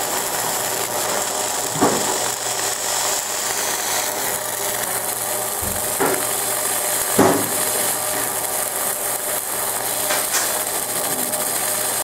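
Fiber laser deep-engraving a Mazak (zinc-alloy) buckle: a steady hiss and rasping buzz as the beam works the metal, with three short falling chirps about two, six and seven seconds in.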